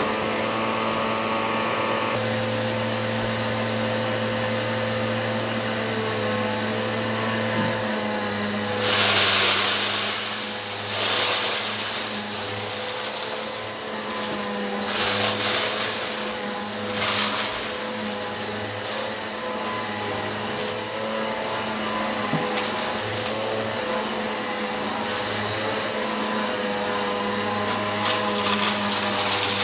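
Eureka PowerSpeed upright vacuum cleaner running with a steady motor hum, with louder rushing surges a few times from about nine seconds in as it sucks up rock salt and lentils.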